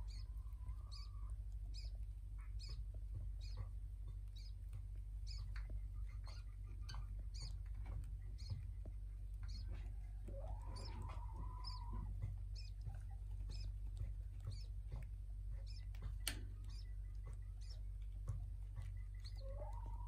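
Caged budgerigars chirping: a steady run of short, high chirps about every half second, with a longer drawn-out call around ten seconds in and another near the end. A steady low hum runs underneath, and there is one sharp click about two-thirds of the way through.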